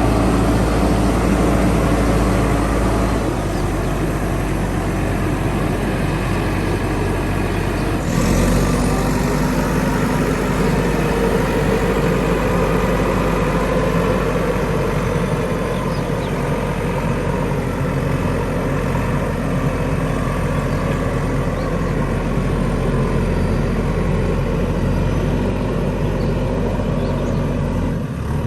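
Diesel engine of a JCB 3DX backhoe loader running steadily, its note shifting about three seconds in and again about eight seconds in.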